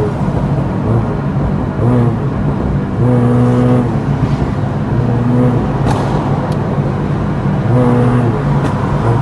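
Honda Civic FD engine revved in several short bursts. Sharp pops crackle from the exhaust as the revs fall, the pop-and-bang effect of an ECU remap.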